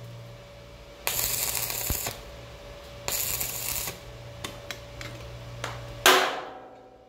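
Stick (electrode) arc welding crackling in two short bursts, about a second and then a little under a second, as tack welds are laid on a steel trailer-fender reinforcement. A few light metallic taps follow, then a sharp hammer blow on the hot steel that rings out and fades: the tack is being knocked down before it cools, and the slag flakes off. A steady low hum runs underneath.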